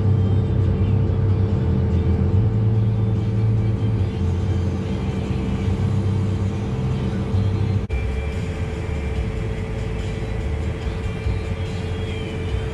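Farm harvest machinery's engine running steadily: a constant low drone with a steady hum above it, and a brief break about eight seconds in.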